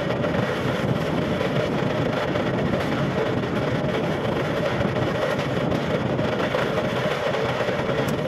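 Wood lathe spinning a wooden spindle while a hand-held chisel cuts into it, a steady, even cutting noise over the running lathe. The cutting stops right at the end as the tool is lifted off.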